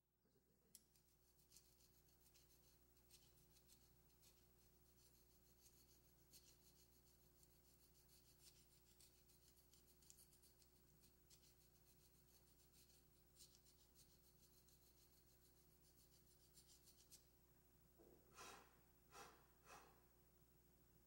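Faint, irregular scratching and rubbing of hands working at something, over a low steady hum, with three louder short scrapes near the end.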